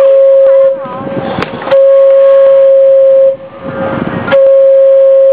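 Steam clock's steam whistle sounding long, steady blasts of one pitch, each about a second and a half long with a pause of about a second between them. One blast ends early on, another follows, and a third starts near the end.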